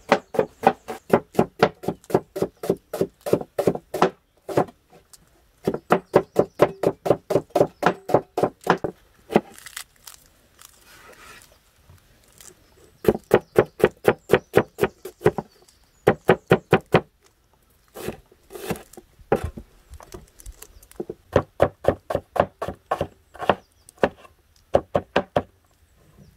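Large knife chopping onions on a round wooden board: quick, even knocks about five a second, in runs of a few seconds broken by short pauses.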